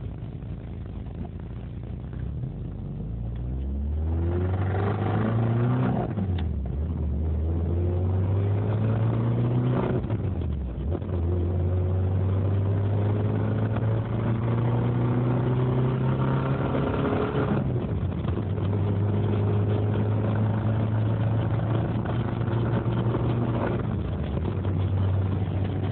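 Isuzu 1.8-litre engine idling, then revved up about four seconds in and held at raised revs, dropping back briefly several times between. It has a knock that the owner takes for rod knock from a worn connecting-rod bearing.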